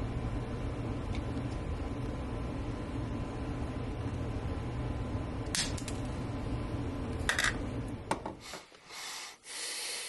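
Side cutters snipping the shanks off small bronze tacks, a sharp metallic click with each cut: two about five and a half and seven seconds in, then a lighter click. A steady low hum runs underneath until just past eight seconds, and a short hiss follows near the end.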